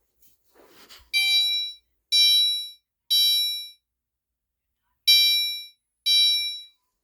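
Fire alarm sounding an electronic horn tone in the temporal-three evacuation pattern: three pulses about a second apart, a pause, then three more.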